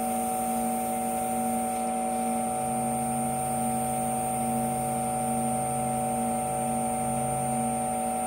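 Wood lathe running steadily at speed, its motor giving an even whine made of several steady tones, while a paper towel is held against the spinning padauk spatula to burnish in the linseed-oil finish. A lower hum joins about two and a half seconds in.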